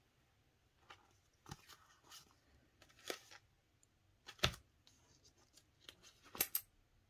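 Canadian polymer banknotes and clear plastic cash envelopes being handled: scattered short crinkles and rustles, with two sharper crackles in the second half.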